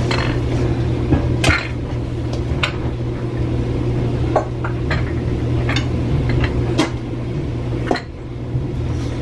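Dishes being handled and set down, with about half a dozen separate clinks and knocks spread over the few seconds, over a steady low hum.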